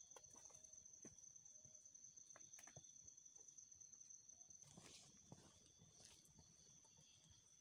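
Faint footsteps of hikers on a dirt and stone trail, a few soft scattered steps, under a steady high insect drone.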